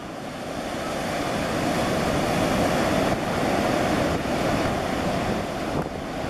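Sea surf rushing and washing ashore, swelling to a peak about halfway through and then easing off, with wind buffeting the microphone.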